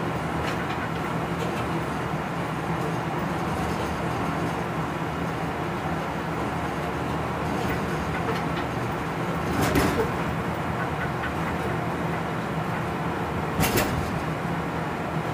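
Class 139 electric locomotive running along the line, heard from its cab: a steady running noise with an even low hum, and two short louder knocks, about ten seconds in and again near fourteen seconds.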